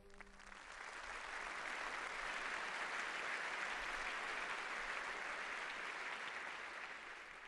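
Audience applauding, swelling over the first two seconds and slowly dying down toward the end, as the orchestra's last chord fades away at the start.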